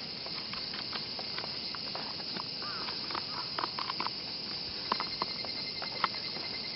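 Scattered light clicks and taps of gloved hands handling a WE G39C gas blowback airsoft rifle and its mounted weapon light, over a steady high hiss.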